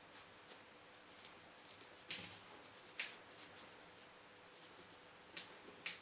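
Faint, scattered rustles and short scratchy handling noises, about seven in all, as Velcro strips are pressed onto the back of a latex mask by hand.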